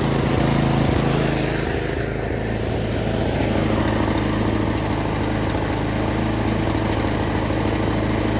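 Snow blower engine running steadily, test-run on a newly replaced drive belt. Its note shifts about three seconds in, then holds steady.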